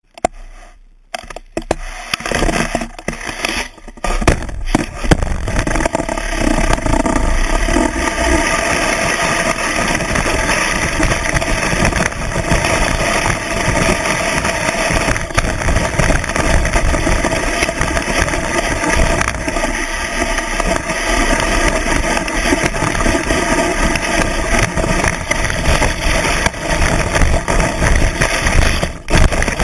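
Skis running through deep powder snow, heard from a camera mounted on the ski: a steady loud rush of snow and wind against the microphone. The first few seconds are quieter, with a few scattered knocks, before the rush builds at about four seconds in.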